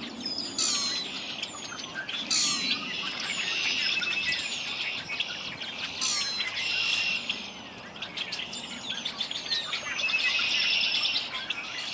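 A chorus of several songbirds in spring: many quick high chirps that sweep down in pitch, overlapping with long buzzy trills that come back three times.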